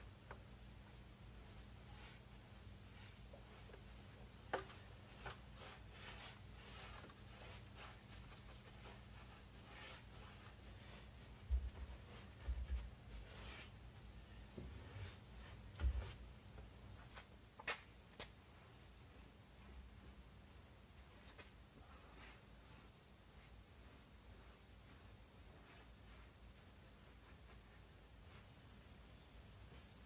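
Crickets trilling in a steady, high-pitched chorus. A few soft knocks and low thumps break in, the loudest about halfway through.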